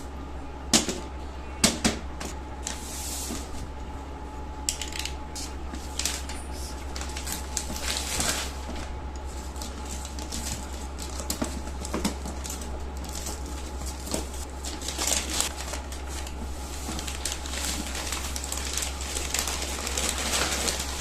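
Scattered clicks, taps and short rustles of objects being handled, over a steady low electrical hum.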